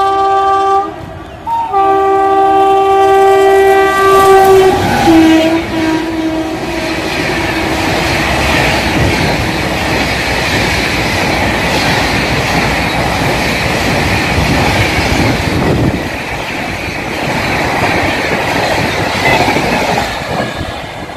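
Rajdhani Express locomotive's air horn sounding as the train approaches at speed, breaking off about a second in and then sounding again until its pitch drops as the locomotive passes, about five seconds in. After that comes the steady rush of the red coaches passing close by at speed, wheels clattering over the rails.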